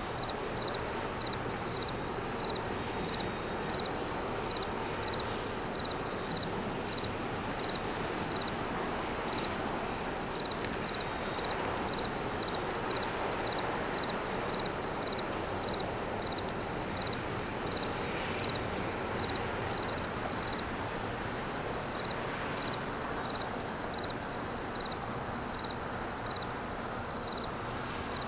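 Late-summer insects chirping: a regular high chirp about twice a second and a higher, nearly continuous trill, over a steady background rumble.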